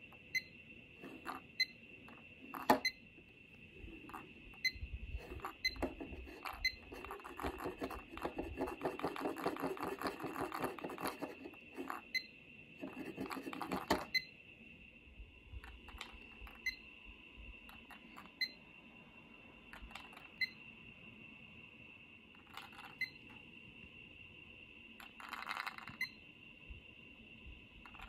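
A plastic IKEA KLOCKIS cube clock handled and turned in the fingers: scattered light clicks and taps, with a stretch of rubbing and rustling in the middle. A steady high tone runs underneath throughout.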